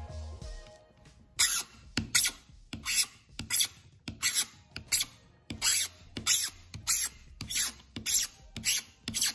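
A pointed metal tool scraped hard across an acrylic plastic sheet, scoring scratches into its surface. About a dozen quick scraping strokes come roughly one every half second, starting about a second and a half in.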